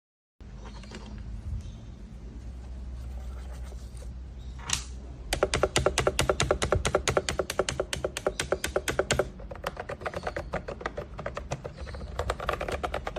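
Typing on a wireless keyboard with round, typewriter-style keycaps. A fast run of key clicks lasts about four seconds, then slower, more scattered keystrokes follow.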